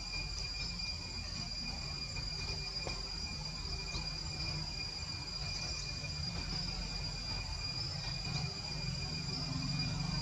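Steady, high-pitched insect chorus trilling without a break, over a low rumble.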